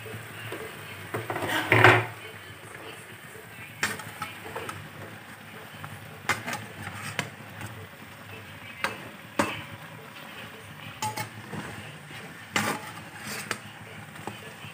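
A utensil knocking and scraping against a frying pan as pieces of chicken adobo are stirred. There are irregular clinks every second or two, with the loudest clatter about two seconds in.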